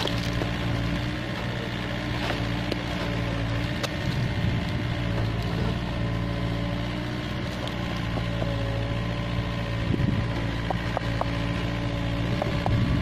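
Komatsu PC45 mini excavator's diesel engine running steadily, with a slight change in pitch partway through and a few light clicks in the second half.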